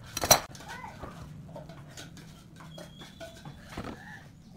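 A metal steel square is set down on a wooden workbench with one sharp knock about a third of a second in, followed by light taps and handling clicks as it is positioned on the board for pencil marking.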